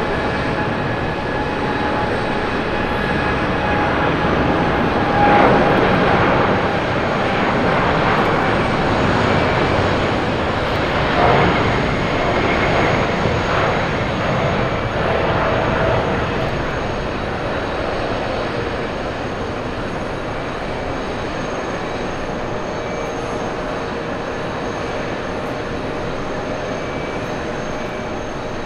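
Boeing 787 jet engines at takeoff power through the takeoff roll, lift-off and climb-out: a loud, steady jet rush with thin whining tones above it, loudest in the first half and easing slightly as the airliner climbs away.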